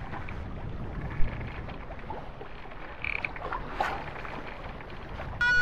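Sea and wind noise aboard a sailing yacht under way, with scattered small clicks and knocks from the boat. Music begins just before the end.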